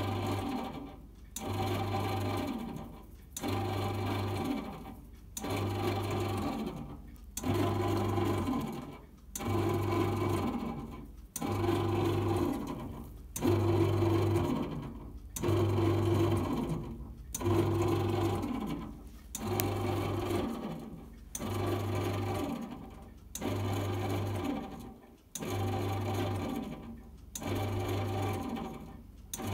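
Melissa bread machine's kneading motor turning the paddle in bursts of about a second and a half, broken by short pauses roughly every two seconds, as in the machine's kneading stage.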